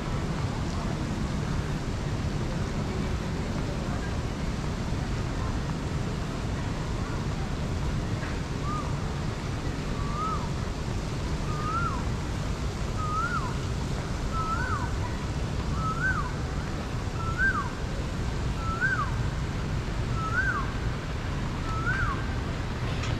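Steady low outdoor background rumble, with a bird calling about ten times in a row from roughly a third of the way in, one short rising-then-falling note every second and a half that creeps slightly higher in pitch as the series goes on.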